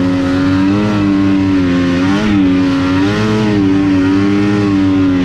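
Snowmobile engine running at steady high revs, its pitch dipping and rising slightly a few times with the throttle.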